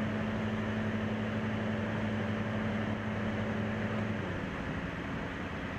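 Light single-engine airplane's piston engine and propeller running with a steady drone, heard in flight. About four seconds in the tone drops and gets slightly quieter.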